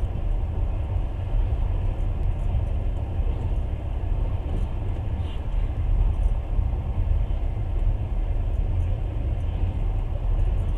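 Passenger train in motion heard from inside the carriage: a steady low rumble of wheels on the rails.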